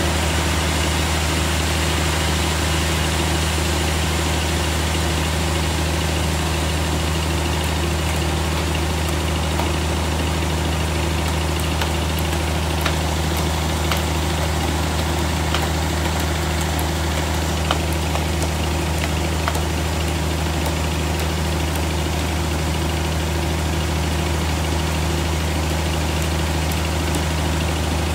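Sawmill log band saw running steadily with a low machine hum. A few sharp taps come in the middle as a worker strikes the log with a hammer.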